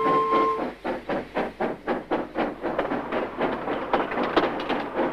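Steam locomotive chuffing at an even pace, about three puffs a second. A held woodwind-like note of background music ends about half a second in.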